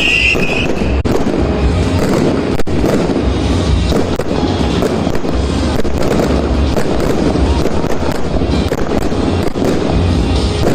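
Fireworks and firecrackers crackling densely and without a break, with many small sharp bangs, over music with a deep bass.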